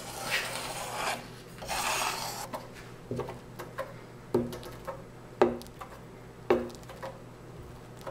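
A scraper spreading silicone across a foil-covered satellite dish, with two long rasping strokes in the first few seconds. After that come several sharp knocks with a short ring, about one a second.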